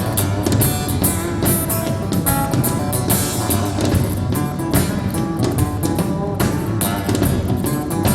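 Song passage with strummed acoustic guitar and drums, played back through a bookshelf hi-fi loudspeaker for a listening test.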